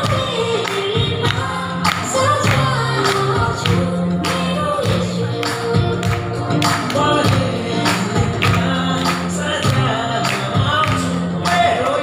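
Gospel song: singing over a steady beat with a held bass line, loud throughout.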